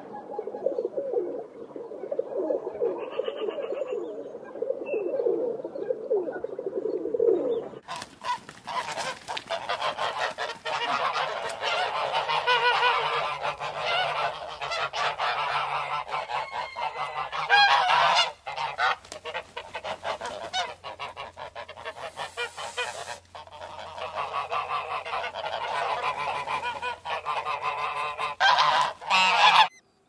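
Feral pigeons cooing in low, repeated calls. About eight seconds in they give way suddenly to domestic geese honking loudly and almost without pause.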